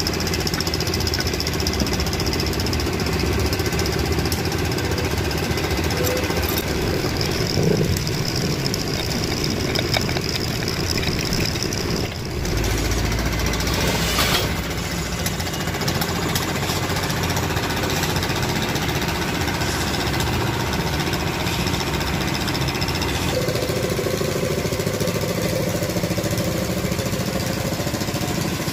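A diesel engine running steadily.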